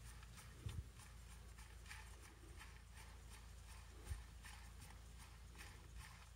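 Faint, irregular light clicks and a couple of soft thumps as gloved hands handle a Shimano Force Master 800 electric baitcasting reel.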